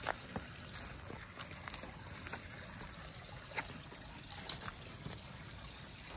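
A shallow woodland creek trickling, with a few scattered footsteps on the stony creek bed, the loudest right at the start.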